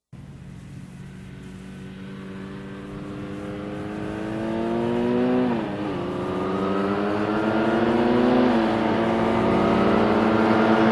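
Car engine sound effect accelerating from silence. The engine note climbs, drops sharply about five and a half seconds in and again around eight and a half seconds as if shifting up a gear, and grows louder throughout.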